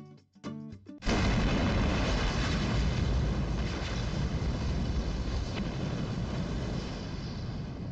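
Intro sound effect: a few short plucked notes, then about a second in a sudden loud fiery explosion whose rush of noise slowly dies away.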